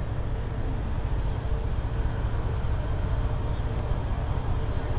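Steady deep rumble with a faint pulsing hum above it, and a couple of faint, high, falling chirps.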